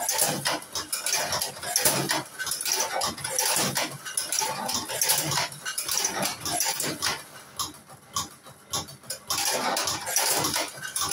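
Cigarette tube-filling (tobacco rolling) machine being worked, with irregular mechanical clicking and clattering. It eases off briefly about two-thirds of the way through, then picks up again.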